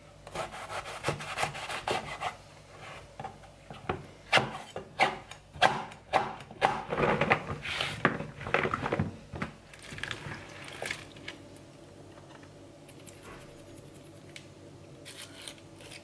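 A knife cutting through eggplant on a plastic cutting board in quick slicing and scraping strokes. This is followed by a run of sharper knocks and scrapes as the cut pieces are pushed off the board into a plastic bowl. After about eleven seconds it quiets down, with a few light clicks near the end.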